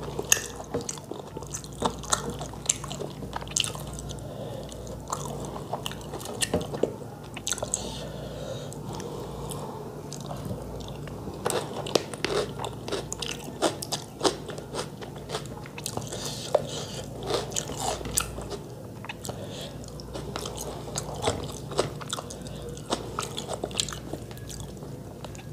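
Close-up eating sounds: chewing and biting of rice and chicken curry eaten by hand, with many short sharp mouth clicks throughout, and fingers gathering rice on a metal plate.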